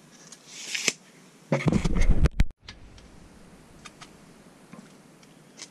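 Hand tools being handled and moved about: a short scraping rustle, then a louder clattering bump about one and a half seconds in that cuts off suddenly, followed by a few faint ticks.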